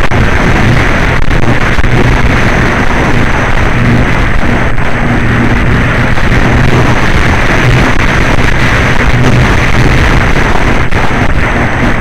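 Strong wind rushing and buffeting over the onboard camera's microphone on a Flyzone Calypso RC plane in flight, loud and unbroken, with a low steady hum underneath.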